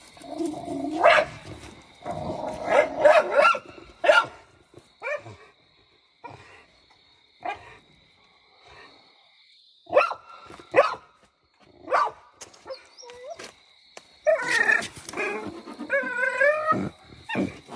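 Pit bull-type dog barking and whining in short bursts at pigs behind a pen gate, with quiet gaps between the bursts and a denser run of wavering cries near the end.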